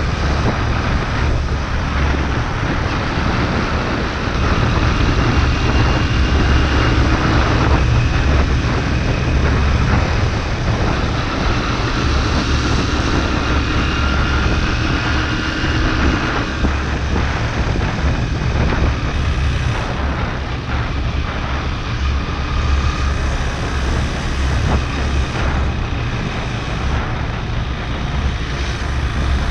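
Steady wind rumble buffeting the microphone of a camera riding on a moving motorbike, over the motorbike's engine drone.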